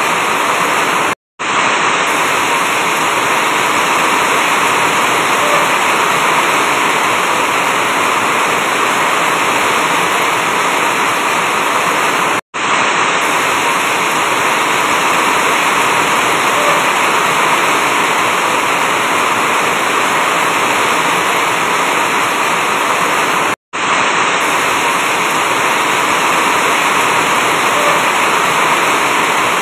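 Heavy rain drumming steadily on an asbestos-cement roof, a dense even hiss. It cuts out to silence for a split second three times, about every eleven seconds.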